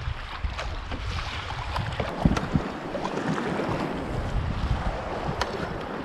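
Wind buffeting the microphone over water splashing and lapping along a sit-on-top kayak's hull as its paddles dip and splash, with many small drip-like clicks. A single brief thump stands out a little over two seconds in.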